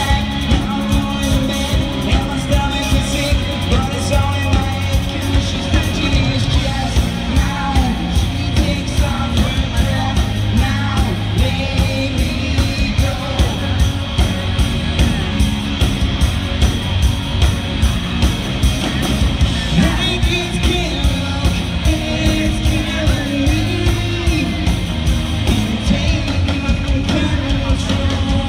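Live rock band playing with a lead singer over a steady drum beat, recorded from the audience in a large hall.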